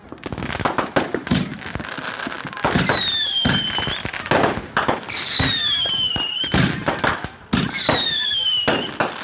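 Consumer firework cakes going off in quick succession: a string of sharp bangs and crackles, with three whistles falling in pitch about three, five and eight seconds in.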